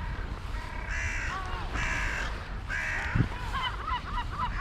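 Crows cawing: three harsh caws about a second apart, followed near the end by a quick run of short, higher bird calls.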